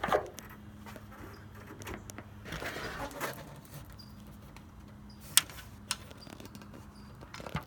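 Hood prop rod of a pickup being handled and clipped back into its holder: scattered light clicks and rattles, a short rustle about three seconds in and a sharp metallic click about five and a half seconds in.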